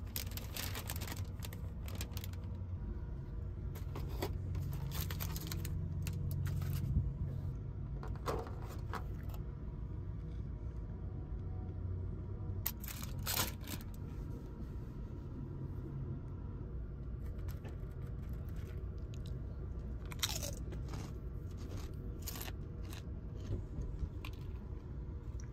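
Bursts of crinkling and rustling as a white paper takeout bag is opened and the food is handled, coming in scattered clusters over the steady low rumble of the moving train.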